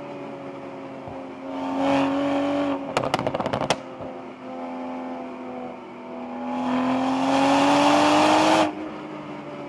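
Stock exhaust of a 2021 Toyota Supra 3.0 and its turbocharged B58 inline-six under spirited driving. A short burst of throttle is followed about three seconds in by a quick run of crackles, then a longer pull with the pitch slowly rising that cuts off sharply near the end.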